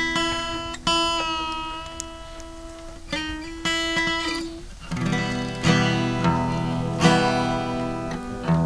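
Acoustic guitar playing without singing: single notes picked and left to ring, then fuller, lower chords coming in about five seconds in.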